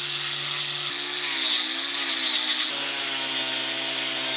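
Electric angle grinder running steadily as it cuts through a clear acrylic sheet. About a second in, its whine sags and wavers in pitch for a couple of seconds as the disc bites into the plastic, then it steadies again.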